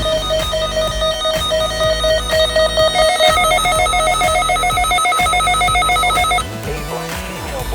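Weather radio receiver's alert alarm beeping rapidly, a pulsed electronic tone that steps up slightly in pitch and speeds up about three seconds in, then cuts off suddenly about six and a half seconds in.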